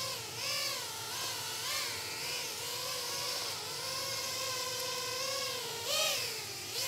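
FPV quadcopter's brushless motors and propellers whining as it lifts off and hovers, the pitch rising and falling with each throttle correction and swelling once near the end.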